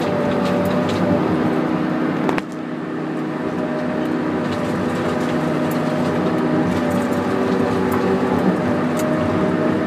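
John Deere 909JH feller buncher's diesel engine and hydraulics running steadily while working, heard from the cab. A sharp click comes about two and a half seconds in.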